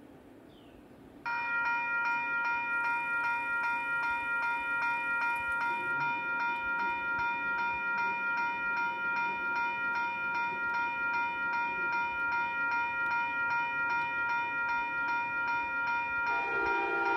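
Western-Cullen-Hayes electronic crossing bell (E-Bell) starts ringing about a second in, a rapid, even string of ringing dings. It is the warning of a railroad crossing activating for an approaching train. Near the end a second, lower-pitched ringing joins it.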